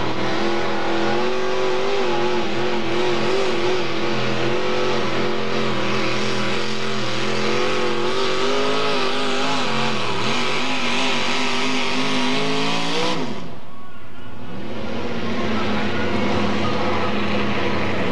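Mini modified pulling tractor's engine at high revs under load, dragging the weight-transfer sled, its pitch wavering as it pulls. About thirteen seconds in the revs drop sharply as the pull ends, and an engine then runs on at a lower note.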